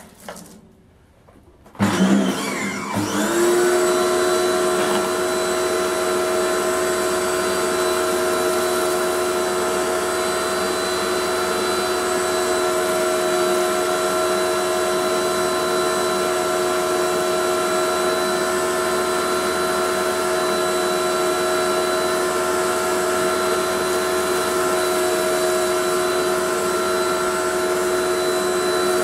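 Dedra 1900 W electric pressure washer starting up about two seconds in, its motor and pump whining up to speed and then running steadily while the foam-cannon lance sprays detergent.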